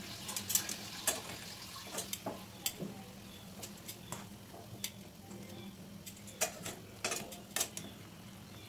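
Metal kitchen tongs clicking and knocking against a stone-coated frying pan as chicken drumsticks are turned, over a faint sizzle of the chicken cooking in its juices. The clicks come irregularly, with the sharpest near the start and again near the end.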